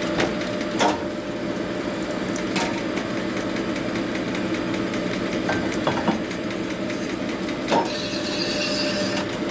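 Power hone running steadily, its honing stones grinding inside a bearing bore of an engine case, with a few sharp clicks. Near the end a higher, scraping hiss joins in.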